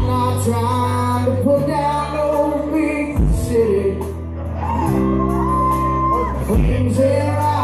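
Southern rock band playing live, with acoustic and electric guitars, bass and drums under a sung vocal line.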